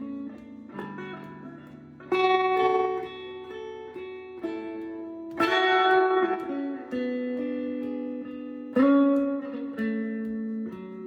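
Guitar playing a slow instrumental passage with no singing: picked notes, with a fuller chord struck about every three seconds and left ringing.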